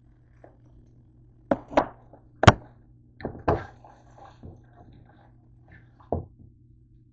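Cookware and utensils knocking on the stovetop as a slotted spatula and a dark pot are handled: a cluster of sharp knocks, the loudest about two and a half seconds in, then a last one near the end.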